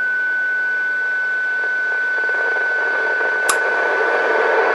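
ICOM IC-706 receiver's speaker sounding a steady high-pitched test tone, the beat note of an RF signal generator's carrier, over receiver hiss. The hiss grows over the last second or so as the generator is wound down toward the radio's noise floor. A single click about three and a half seconds in.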